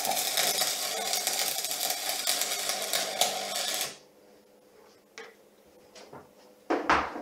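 Electric arc welding on aluminium: a steady crackling hiss of the arc that cuts off about four seconds in. After that come a few faint clicks and a short knock near the end.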